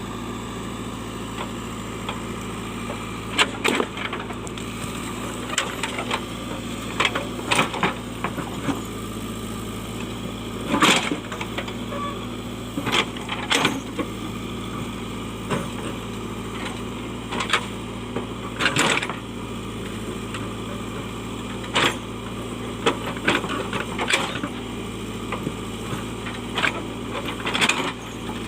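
A JCB backhoe loader's diesel engine runs steadily, with irregular sharp knocks and cracks as the bucket strikes and breaks out stones and rocks in the soil.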